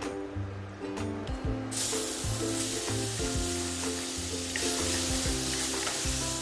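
Food sizzling in hot oil in a pan, starting suddenly about a second and a half in, as ingredients go into the oil for a holy basil shrimp sauce. Background music plays throughout.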